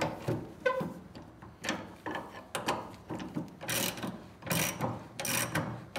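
Socket ratchet clicking in short back-strokes as it loosens a rear leaf-spring shackle bolt. The clicks come in uneven clusters and grow stronger in the second half.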